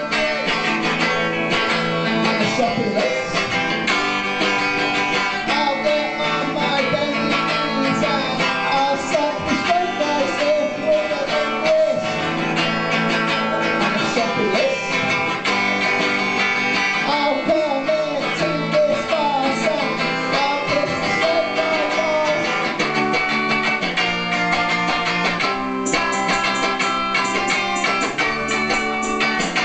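Guitar-led song: strummed guitar with a wavering melody line over it through the middle of the stretch.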